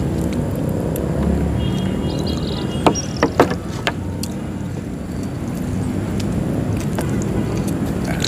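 A steady low rumble of background noise, with a few sharp clicks of a utensil against the bowl about three to four seconds in as the giant meatball is cut.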